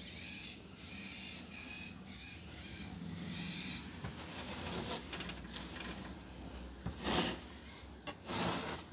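Birds calling outside in short repeated calls, then two short loud bursts of noise near the end.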